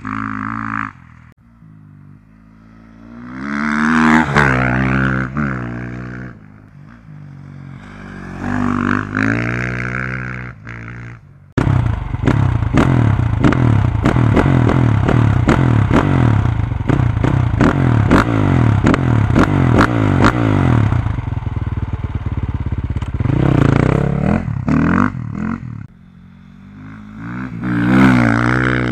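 Sherco SEF-R 450 four-stroke single-cylinder dirt bike with a full Akrapovič exhaust and no dB killer. It passes at a distance twice, its pitch rising and falling, then about 11 seconds in it is heard loud and close at the exhaust, held at high revs with a rapid crackle, before revving up again and riding past near the end.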